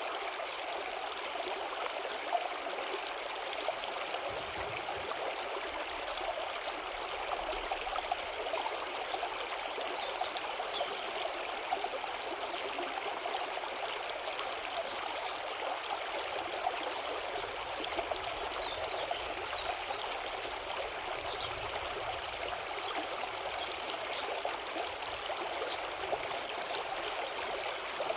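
Apple River flowing over rocks: a steady, even rush of running water with small splashes and gurgles.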